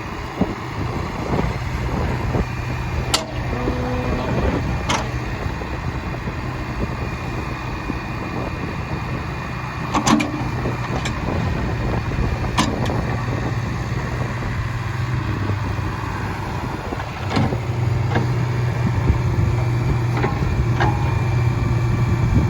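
John Deere 310SK backhoe loader's diesel engine running under hydraulic load while the backhoe and its extendable dipper are worked, the engine note swelling about a second and a half in and again near the end, with a few sharp metallic clanks from the boom. The engine runs quiet and sounds healthy.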